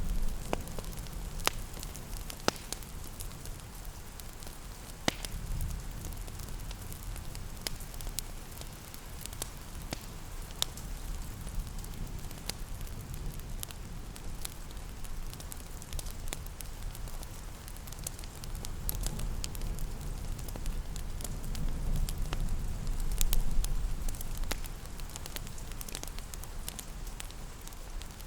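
Wood fire crackling in a fireplace: scattered sharp pops and snaps over a low, steady rumble, with an even rain hiss beneath. The low rumble swells for a few seconds past the middle, then eases.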